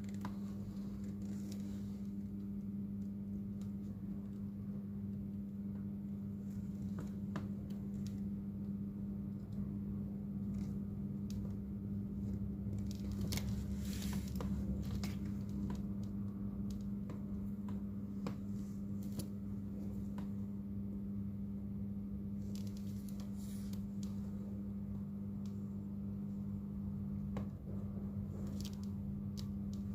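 Small clicks, taps and scrapes of tools and parts being handled on a workbench, over a steady low electrical hum; the handling is busiest about halfway through.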